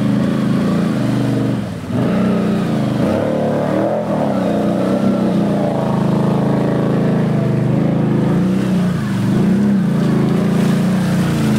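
ATV engine revving up and down again and again, under load as the quad is worked through deep mud and water.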